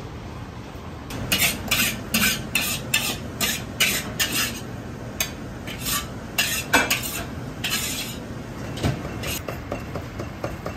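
A metal ladle scraping and knocking against a steel wok in a run of quick, sharp strokes, about two or three a second, over a low kitchen background.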